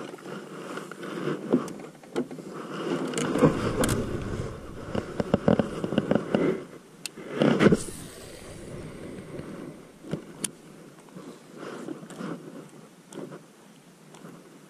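Knocks, clicks and scrapes of a fishing rod and gear being handled in a plastic kayak. About halfway through comes a cast with a baitcasting rod, the loudest sound, followed by a fading hiss. Quieter ticking of the reel being wound follows near the end.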